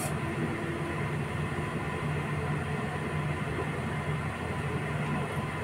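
A steady low hum with an even background hiss, unchanging throughout.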